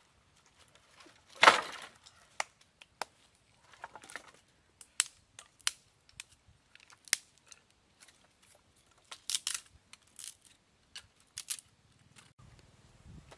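An armload of dry firewood branches dropped onto the ground with a loud clattering crash, then sharp, irregular clacks of dry sticks knocked together as they are handled and sorted.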